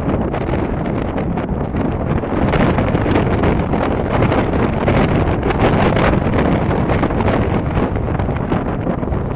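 Rain falling in strong wind, with gusts buffeting the microphone: a loud, steady rushing noise.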